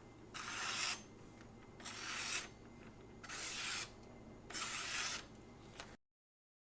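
Steel knife edge drawn across magazine paper in four even rasping strokes, about one every 1.3 seconds, finishing a freshly whetstone-sharpened stainless blade. The sound cuts off abruptly near the end.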